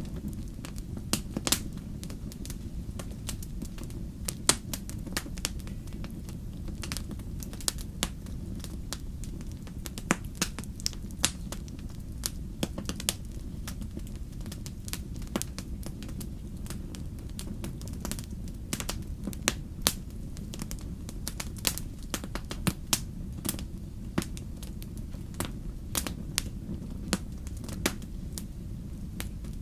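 Wood campfire burning, with a steady low rumble and frequent irregular sharp crackles and pops of the burning wood.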